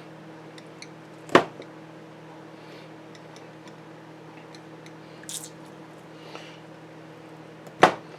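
Kitchen handling noises while a chicken is injected with marinade: two sharp knocks about six seconds apart, with small clicks and a brief hiss between them, over a steady electrical hum.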